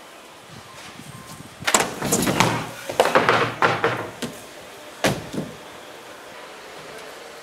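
A skateboard slam on a plywood mini ramp: a hard impact about two seconds in, then body and board scraping and sliding down the wooden ramp with several knocks, and one more sharp clack of the board about five seconds in.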